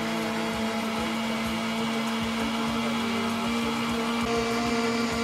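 Countertop blender running steadily at one speed with a plastic jar, blending a thin liquid batter of milk, oil, eggs, sugar, salt and fresh yeast.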